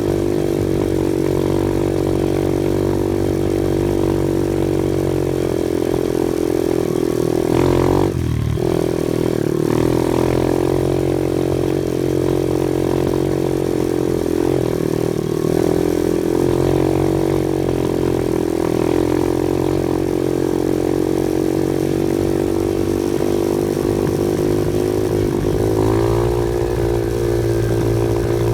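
Off-road vehicle's engine running steadily under way. About eight seconds in, its pitch drops briefly and then picks back up.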